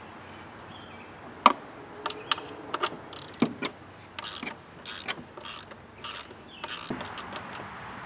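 Socket ratchet wrench clicking in short strokes as bolts holding the belt cover under a lawn mower deck are snugged up, with one sharp metal click about one and a half seconds in.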